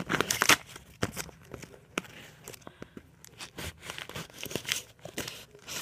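A parcel's packaging being slit open with a blade and torn, with crinkling and scattered small clicks. The noisiest stretch comes in the first second.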